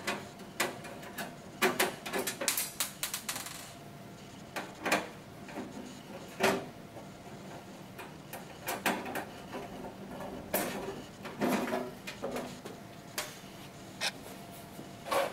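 Screwdriver work and handling on the sheet-metal side panel of a laboratory water still as its screws are taken out: quick runs of small clicks in the first few seconds, then scattered knocks and clatters of metal parts being handled.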